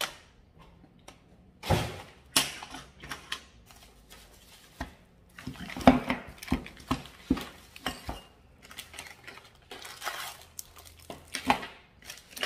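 Bubble-wrapped LED floor-lamp tubes and plastic parts bags being handled on a stone countertop: irregular knocks and clinks as the tubes are set down and shifted, with rustling of bubble wrap and plastic.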